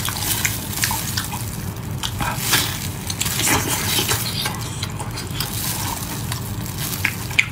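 Close-miked wet eating sounds: chewing and squelching on a chili-sauced octopus, with irregular sticky clicks and smacks.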